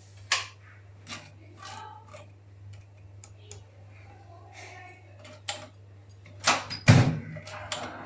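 Knocks and clicks of kitchen handling as a glass bowl covered with a plate is put into a microwave oven: a sharp knock just after the start, light scattered clicks, then two louder knocks near the end.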